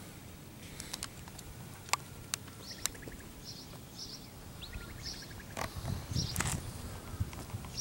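Outdoor ambience: small birds chirping over and over, with scattered sharp clicks and a couple of soft low thumps near the end.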